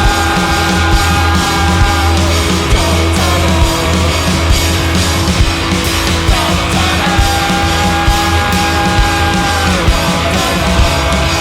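Live rock band playing a loud, driving song with drums and heavy, distorted instruments. Two long held high notes ring out over the beat, one at the start and another from about seven seconds in.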